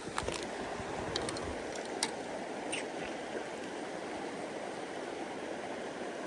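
Mountain river flowing over rocks, a steady rushing of water, with a few short sharp clicks in the first three seconds.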